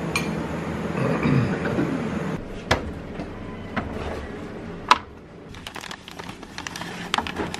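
Sharp plastic clicks and knocks from a top-loading washing machine's lid and detergent drawer being opened and handled. The loudest click comes about five seconds in, with a run of smaller clicks near the end.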